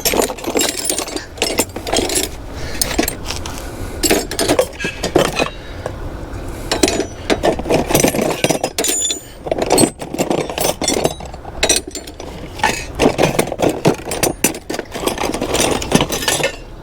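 Rusty metal hand tools clinking and clattering as they are rummaged through and picked up, with many irregular knocks throughout.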